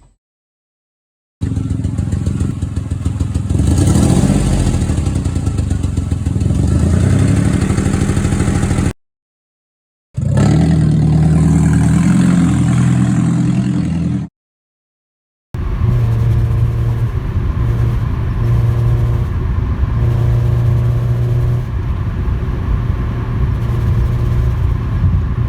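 Car engines running with exhaust leaks, heard as three separate recordings with short silent gaps between them. The leaks range from a small leak at the downpipe gasket to a large one at the manifold and an open pipe where a catalytic converter was cut out, making the engines sound like a lawnmower, a dirt bike and a Harley. The last recording is a steady, low engine note.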